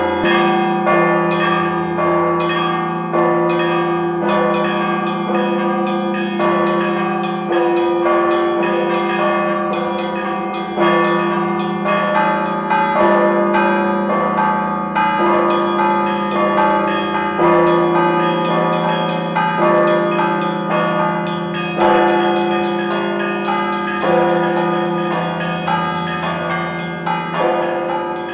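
Orthodox church bells rung by hand in a belfry. A ringer pulls ropes tied to the clappers of several stationary bells of different sizes. Rapid strokes, several a second, play a steady rhythmic peal over deep bell tones that keep ringing underneath.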